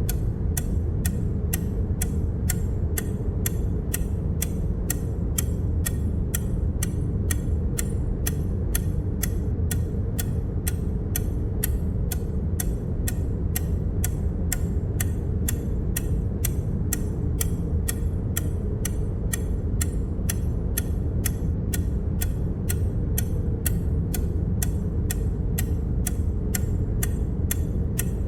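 Clock-tick sound effect repeating evenly, about two and a half ticks a second, each tick marking one more step in the count, over a steady low hum.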